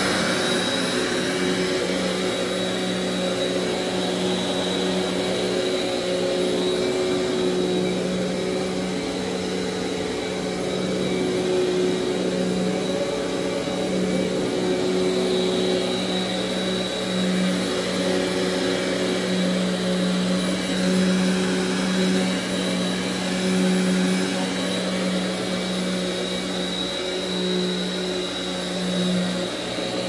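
1995 Simplicity 5000B upright vacuum cleaner running steadily as it is pushed over carpet: a constant motor hum with a high whine above it, swelling slightly as the vacuum moves.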